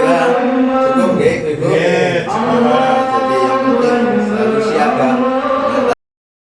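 Vocal music with a held, chant-like sung voice over sustained notes, cutting off suddenly about six seconds in.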